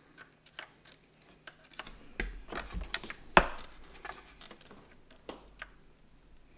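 Scattered small clicks and taps of a small screwdriver working against a metal phone-mount base on a motorcycle's top triple clamp as the part is turned into place. The sharpest tap comes about three and a half seconds in.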